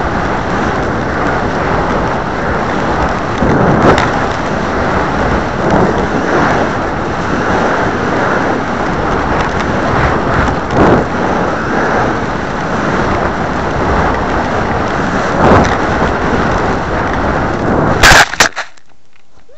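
Wind rushing over the microphone of a model rocket's onboard camera as the rocket comes down, a steady noise with occasional louder gusts. Near the end there are a few loud knocks as the rocket hits the ground, and then the wind noise stops abruptly.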